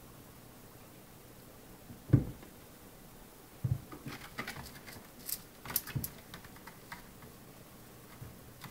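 Kittens playing on a cat play tree: a dull thump about two seconds in, then a run of light knocks and clicks as they bat at the dangling toys and scramble on the posts.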